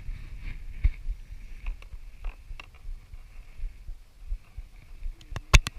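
Low, uneven thumping rumble with scattered clicks and knocks from handling fishing gear in a kayak, and a quick cluster of sharp clicks near the end.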